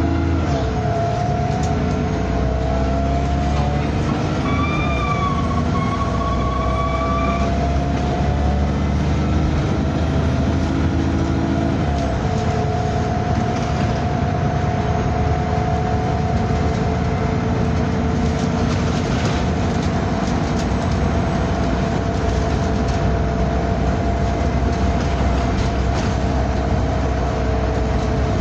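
Bus running with a steady drone from its engine and drivetrain and several steady whining tones over it. A higher whine comes in about four seconds in, bends up and holds, then stops about three seconds later. These are the weird noises the vehicle is known for.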